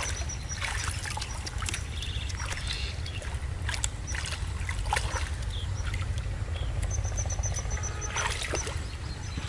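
Water splashing and sloshing in a shallow canal as fish are handled, with scattered sharp clicks over a steady low rumble. Twice, near the start and about seven seconds in, comes a quick run of high chirps.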